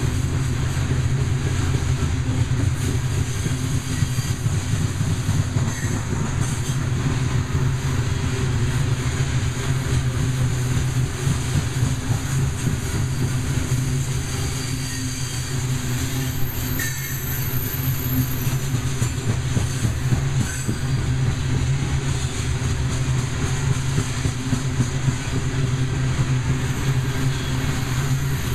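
Loaded coal hopper cars of a freight train rolling past at speed: a steady low rumble of wheels on rail. A faint high-pitched squeal comes in briefly a little past halfway.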